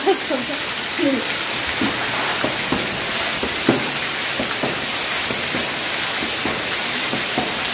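Heavy rain hissing steadily, with short splashes at irregular intervals as a floor wiper sweeps and flicks standing water across a flooded concrete floor.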